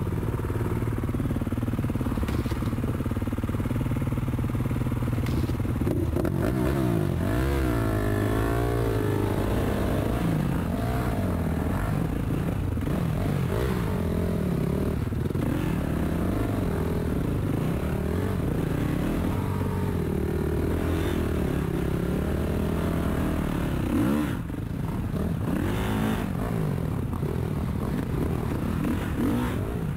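Dirt bike engines running as the bikes ride a rough trail, the revs rising and falling over and over.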